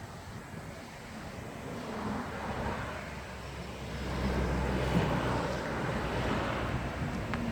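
A motor vehicle's engine hum and road noise growing louder as it approaches, with a steady low drone that strengthens about halfway through.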